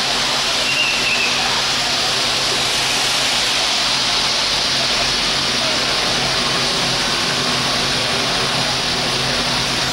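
Heavy rain pouring down, a steady dense hiss with no let-up.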